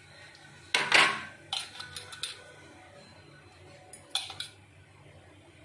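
Peeled litchis dropping into a stainless steel mixer-grinder jar as they are tipped from a glass bowl, with the bowl and fruit knocking and clinking against the metal. There is a cluster of clinks with a short metallic ring about a second in and a couple more knocks near four seconds.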